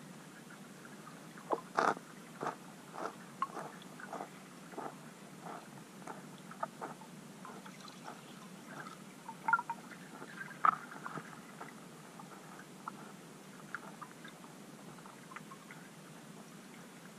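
Irregular underwater clicks and pops from bream and tench crowding around the camera. The clicks bunch about two seconds in and again around ten seconds in, then grow sparse over a steady water hiss.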